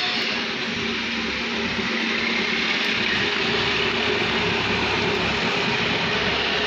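Steady machine noise: a constant hum with a hiss over it.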